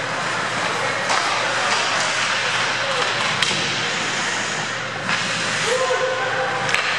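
Ice hockey game in an indoor rink: skate blades scraping the ice make a steady hiss, with a few sharp clacks of sticks and puck, and a player's brief shout near the end.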